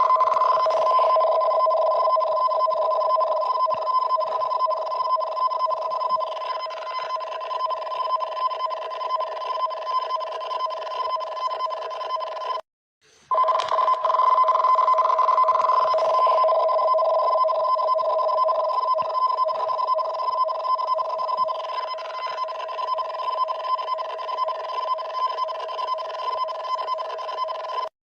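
Japanese emergency alert tone for a tsunami warning: two steady tones sounding together, held on without a break except a brief cut-out about 13 seconds in and again near the end, where the alarm repeats.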